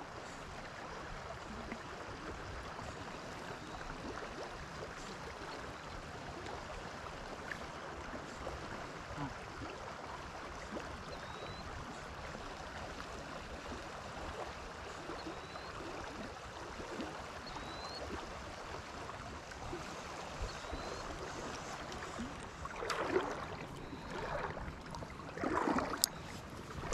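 Steady wind and small waves lapping at the water's edge, with a few louder gusts buffeting the microphone near the end.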